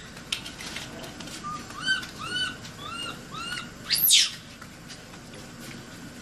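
Baby macaque crying. A run of about six short, arched calls is followed by one loud, high scream that rises and falls about four seconds in.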